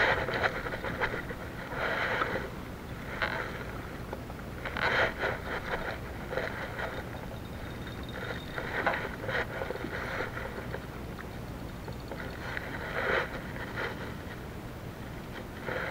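Small waves slapping and splashing against a plastic fishing kayak's hull, in irregular bursts every second or two, over a steady rush of wind on the microphone.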